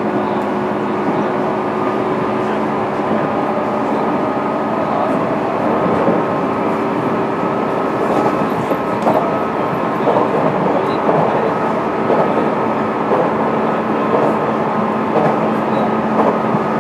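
Cabin running sound of a JR East 205 series electric train, heard inside its motor car: a steady drone of wheels on rail with an even hum from the running gear, at a constant speed. A few light rail clicks come through about eight to ten seconds in.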